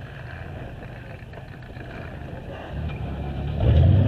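A car engine running nearby, getting louder near the end, as if revved or drawing closer.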